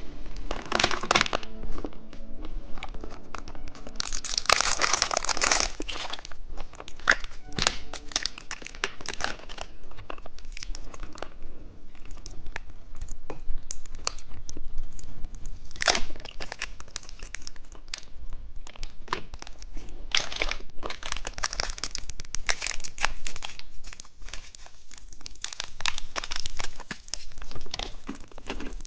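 Plastic candy wrappers crinkling and tearing as lollipops and candies are unwrapped, in irregular sharp crackles and rustles.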